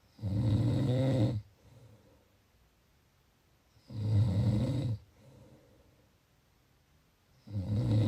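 Snoring in a steady rhythm: three loud snores, each about a second long, one every three and a half to four seconds, each followed by a softer breath.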